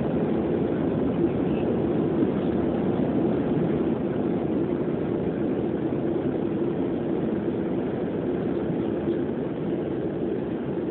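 Steady drone of an airliner cabin in flight: jet engine and airflow noise heard from inside, with a low hum that holds even throughout.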